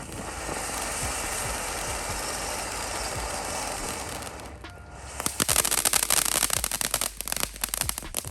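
Handheld firework hissing steadily for about four seconds, then going off in a rapid string of sharp crackling pops.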